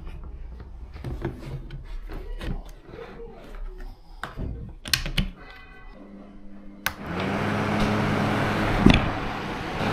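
Plastic clicks and knocks as a battery pack with a 3D-printed adapter is slid into the base of a Ryobi ONE+ cordless fan. About seven seconds in, a switch clicks and the fan starts running with a steady rush of air and a low hum, showing that the Parkside battery powers it through the adapter.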